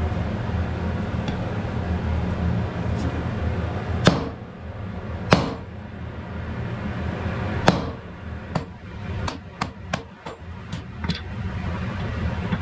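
Metal blows on a red-hot wrought iron wagon axle over the anvil: three heavy ringing strikes a second or two apart, a few seconds in, then a quicker run of lighter knocks. A steady low hum runs underneath.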